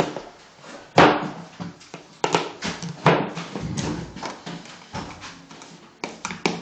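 Irregular knocks and taps of nails being driven into a wall to fix wire closet shelving clips, with the sharpest knock about a second in and lighter clatter between.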